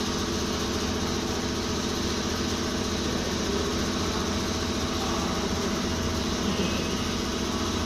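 Mahindra 575 tractor's diesel engine idling steadily.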